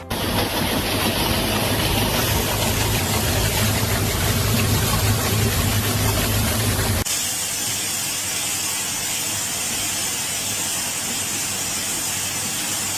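Loud, steady hissing, like a spray or jet of air or steam, over a low hum; about seven seconds in the sound changes abruptly to a thinner hiss without the hum.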